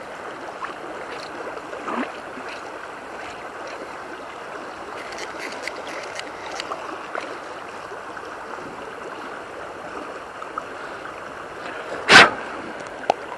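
Steady rush of a river's flowing water, with a short loud burst of noise near the end.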